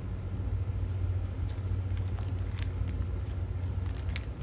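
A steady low hum, with a few faint crinkles and clicks from a snack wrapper being handled.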